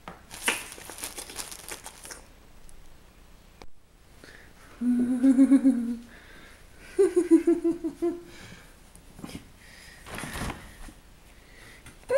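Plastic bread bag crinkling as it is handled, then a person humming two short held notes, the second higher, and a brief rustle near the end.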